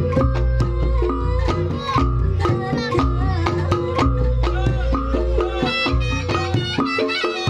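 Reog Ponorogo gamelan music: drums and gong strokes in a steady beat over a sustained low ring. A wavering, reedy melody line comes in over the second half.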